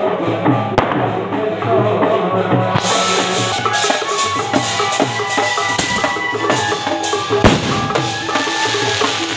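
Loud, drum-heavy music with a steady beat and a melody over it. One sharp bang cracks out about seven and a half seconds in.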